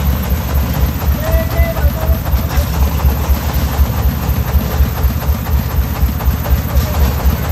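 A công nông's single-cylinder diesel engine running steadily with an even, rapid chug.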